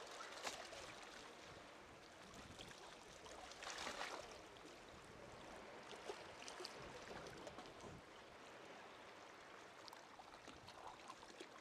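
Faint sea-water sounds: small waves washing and lapping, with light splashes from kayak paddle strokes. A louder wash swells up about four seconds in.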